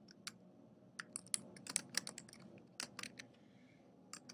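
Typing on a computer keyboard: irregular clusters of quick key clicks with short pauses between them, and a last couple of keystrokes near the end.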